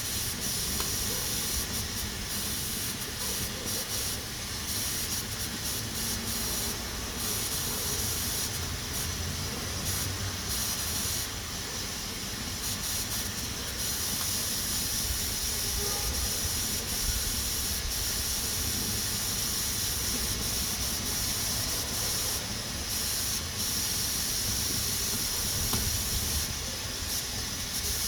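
Pressure cooker hissing steadily as steam escapes past its weighted valve, with a low rumble underneath.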